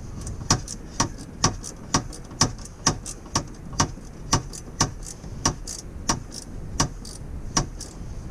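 Ratchet wrench clicking in short back-and-forth strokes on a bolt in a tight spot, sharp single clicks about twice a second.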